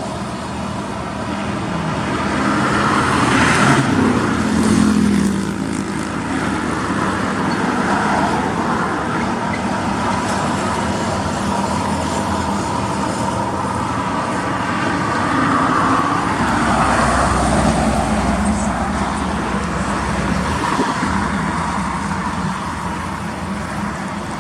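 Road traffic: motor vehicles running with a steady rumble, one passing louder about four seconds in.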